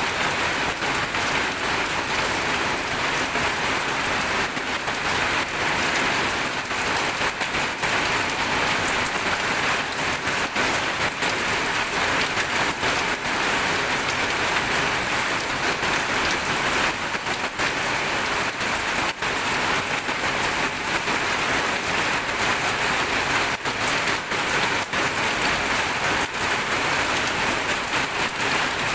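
Steady rain falling on a surface, an even hiss made up of countless dense drop impacts.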